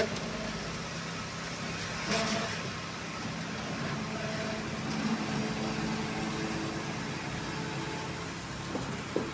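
Steady drone of engine-driven machinery running on a concrete pour, with a brief knock about two seconds in.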